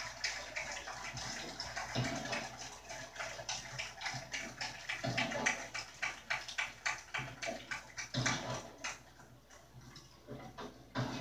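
Crowd applauding, played through a television speaker: a dense patter of claps that thins out and fades over the last few seconds.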